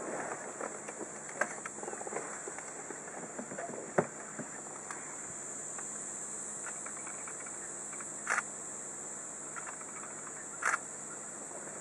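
Male leopard's sawing call, a few hoarse rasping grunts in the first four seconds at the end of a calling bout for a mate, over the steady hum of an idling car. A sharp knock comes about four seconds in, and two short clicks later on.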